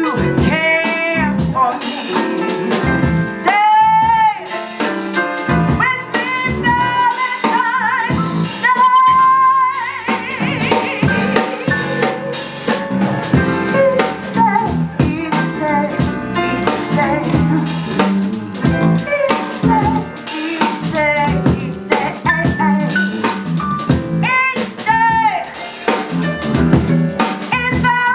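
Live band music with a full drum kit, and a singer holding long notes with vibrato at a few points.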